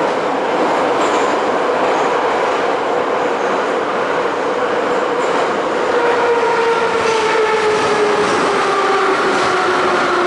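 Moscow metro 81-717 'Nomernoy' train running, heard from inside the car: a steady loud rumble of wheels on rails, with a whine that slowly falls in pitch over the second half as the train slows.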